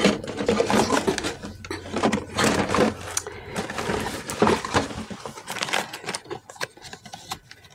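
Rummaging through things by hand: an irregular run of rustles, taps and small knocks as objects are moved about while searching for a packet.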